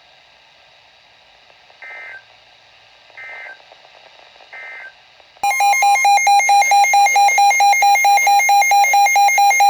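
Emergency Alert System tones: three short warbling data bursts about a second apart, the end-of-message signal closing one alert, then about five and a half seconds in a loud alert tone begins and keeps pulsing about three times a second, starting the next warning.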